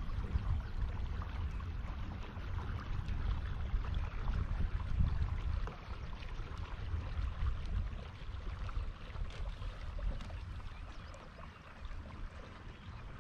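Wind buffeting the microphone in a fluctuating low rumble, with faint water lapping and trickling against the kayak hull.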